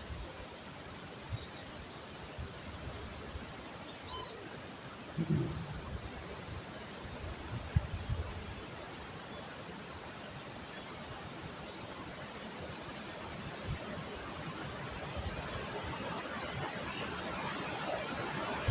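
Wind rushing across the microphone with scattered low buffeting thumps, growing stronger near the end, over a steady high-pitched insect drone.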